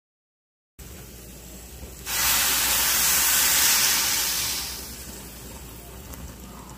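Hot water poured into a hot pan of rice sautéed in chicken fat: after a brief silence, a sudden loud sizzling hiss breaks out about two seconds in and dies down after a couple of seconds, leaving the quieter sound of the water still pouring.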